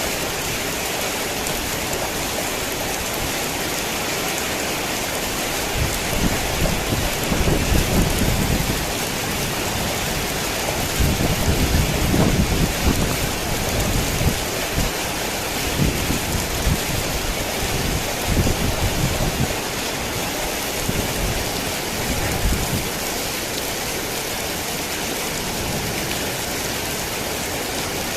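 Heavy rain falling steadily, with low rumbles of thunder swelling up twice, about a quarter and about two fifths of the way in, and shorter rumbles after.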